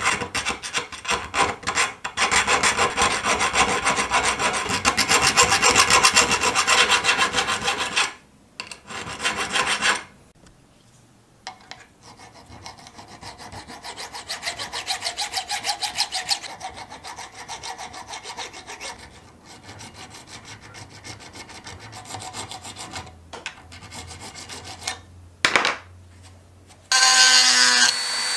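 Needle file rasping back and forth on a cast metal lizard figurine in quick strokes, loud for the first eight seconds, then lighter and fainter. Near the end a small rotary tool starts up with a steady high whine.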